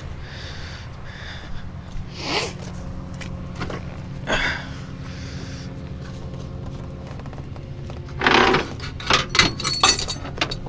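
A truck engine idling steadily. Two short noisy bursts come over it, and near the end there is a louder cluster of knocks and clatter.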